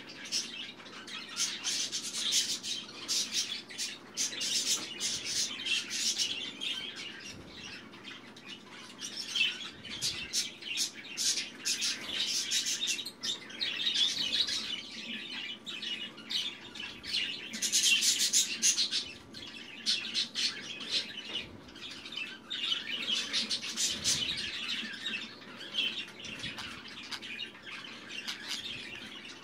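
Budgerigar chattering and chirping in rapid bursts, with brief pauses between runs.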